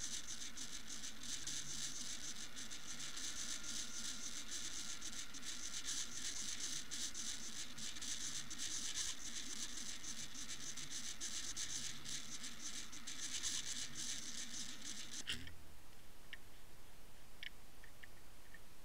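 Dense, steady crackling hiss of lake water heard through a submerged camera's waterproof housing. About fifteen seconds in it stops abruptly with a soft thump as the camera is lifted out of the water, and a few light clicks of the camera being handled follow.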